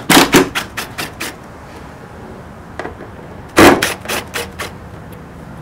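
Small impact driver hammering in two short bursts of rapid knocks while loosening the windshield screws on a Honda ST1100 motorcycle. The second burst comes about three and a half seconds in.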